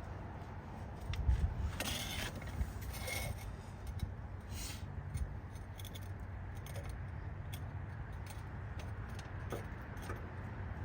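Light metallic jingling and scraping, with a few short bursts of handling noise over a steady low rumble.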